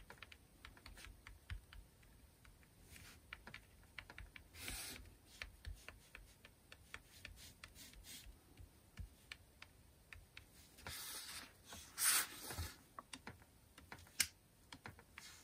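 Gel pen tip tapping dots onto black paper: faint, quick, irregular light ticks. There is a short rustle of the paper sheet being shifted about three quarters of the way through.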